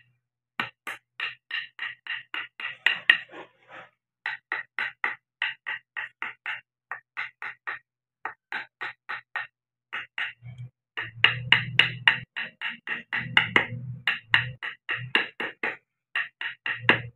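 Wood-carving chisel being tapped into wood in quick, even strokes, about four to five a second, with a few short pauses. From about ten seconds in, many of the blows land with a deeper thud.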